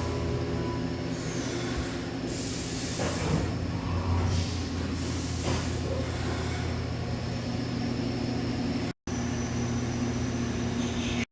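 Fadal VMC 4525 vertical CNC machining center running with a steady hum, with short bursts of hiss between about two and five seconds in. The sound drops out briefly about nine seconds in.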